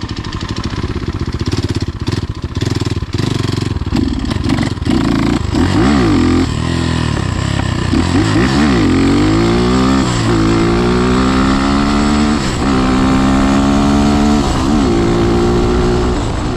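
BSE TTR250 dirt bike's single-cylinder engine under way. It runs steadily with some clatter at first, then revs up and falls back, and in the second half climbs and drops sharply three times as the bike is shifted up through the gears.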